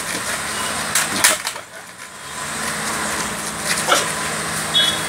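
Outdoor street noise with a steady vehicle engine hum, broken by short sharp knocks or scuffs about a second in and again near four seconds, and a brief high squeak near the end.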